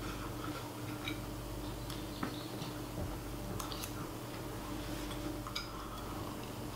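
Knife and fork clinking and scraping on a ceramic plate while eating, a few sharp ticks spread a second or so apart, over a steady low hum.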